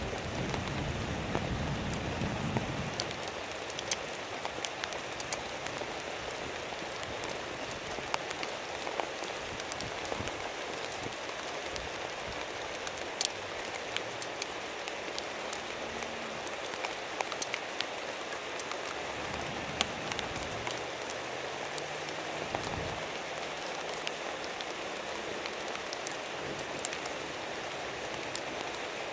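Heavy rain falling steadily on a surface, with many sharp individual drop hits. The tail of a low thunder rumble fades out in the first two or three seconds.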